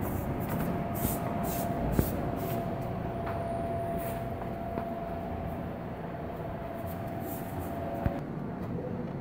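Steady mechanical rumble with a constant hum that stops near the end, under light clicks and faint scratchy rubbing as a rubber glazing gasket is pressed into a window frame around the glass.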